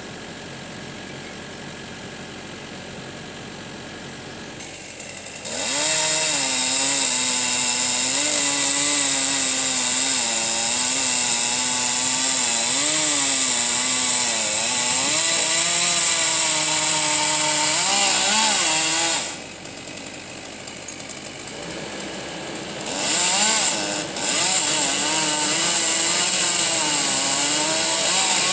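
Chainsaw at full throttle cutting into the trunk of a corkscrew willow, its pitch wavering as it loads in the wood. It comes in about five seconds in over a quieter idling engine, drops back to idle for a few seconds past the middle, then revs up again and cuts on.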